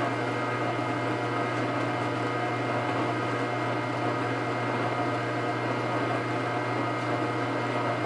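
Kuvings Whole Slow Juicer Elite C7000, a vertical single-auger slow juicer, running steadily: an even, low motor hum with fainter steady higher tones above it.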